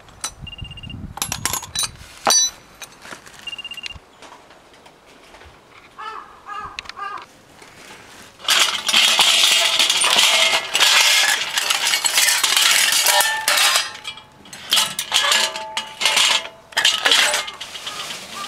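Scrap light-fixture parts being handled and dropped: metal plates, white lamp housings and fluorescent tubes. First come a few sharp ringing metallic clinks, then about halfway through a loud stretch of rattling clatter lasting some five seconds, and more short clatters near the end.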